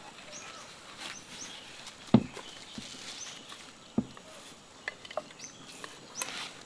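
Hollow wooden knocks and light clatter as coconut-shell bowls and a bamboo mortar and pestle are handled and set down, with one loud knock about two seconds in and smaller ones after.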